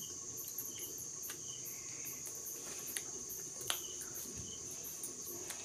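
Crickets chirping steadily, a continuous high trill with a few faint clicks around the middle.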